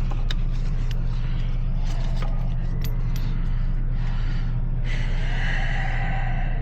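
A steady low mechanical hum with scattered light clicks and taps, and a brief higher tone near the end.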